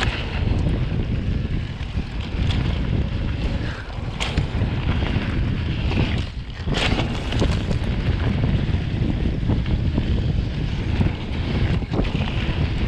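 Wind rushing over the microphone while riding a mountain bike fast down a dirt singletrack, with the bike rattling over the trail and a few sharp knocks from bumps.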